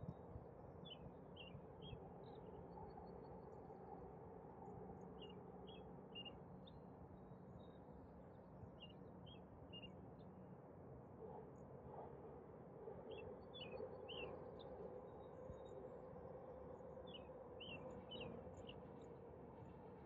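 A faint, steady city hum with a small bird singing over it: a short phrase of three to five quick, falling chirps, repeated five times about every four seconds.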